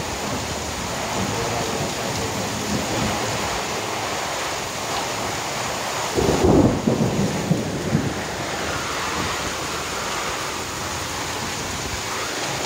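Heavy rain pouring down steadily, with a louder low rumble rising out of it about six seconds in and lasting under two seconds.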